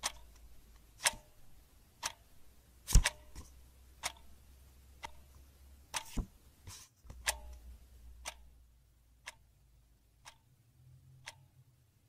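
Clock ticking evenly about once a second. A louder thump comes about three seconds in and another just after six seconds.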